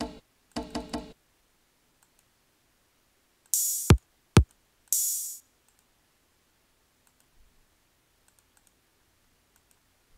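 Drum samples previewed one at a time in FL Studio: a brief pitched hit, then two hiss-like cymbal or shaker hits about half a second long with two sharp, deep kick-like hits between them, then only faint mouse clicks.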